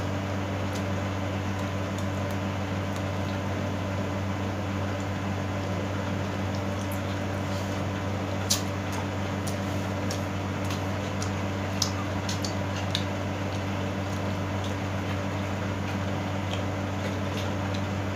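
Chewing and mouth sounds of someone eating grilled pork belly, with a few short sharp clicks, over a steady low hum.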